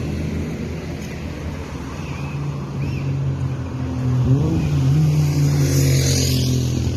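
A motor vehicle's engine running close by, its pitch rising and growing louder about four seconds in.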